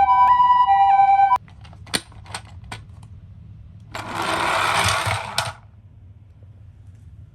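A toy ambulance's electronic two-tone siren that cuts off suddenly about a second in, followed by a few light clicks and then a plastic rattle lasting about a second and a half as a miniature car runs on the slope.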